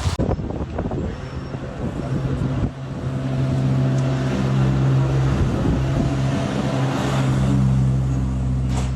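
A motor vehicle's engine running steadily, its even hum growing louder about three seconds in, over irregular clattering noise at the start.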